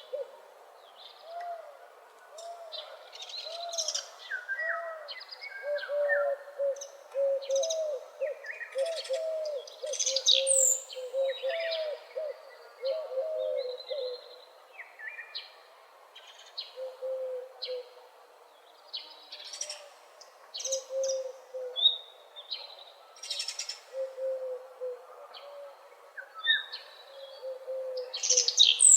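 Morning chorus of several birds: high chirps and trills over a quick run of short, low, repeated hooting notes, which become sparser about halfway through.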